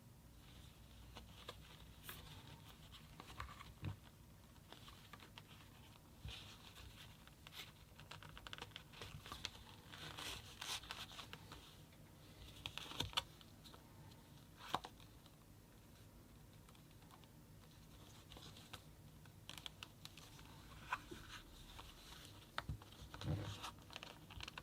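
Faint handling noise of a small phone and its packaging: scattered light clicks, taps and rustles like keys being pressed and plastic or paper being moved, with a few sharper clicks now and then.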